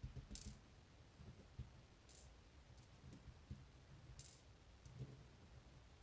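Faint, sharp little clicks, three of them about two seconds apart, from the tiny metal key pins of a Kaba Ace dimple lock being worked out of the lock plug one by one.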